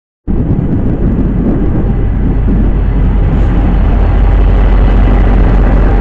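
Te Huia passenger train running past close by: a loud, steady rumble of engine and wheels that cuts in suddenly just after the start.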